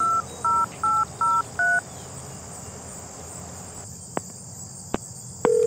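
A touch-tone phone keypad being dialled: about five short two-tone key beeps in quick succession over the first two seconds. A steady high insect hiss runs underneath, two faint clicks follow, and a steady single tone starts near the end as the call connects.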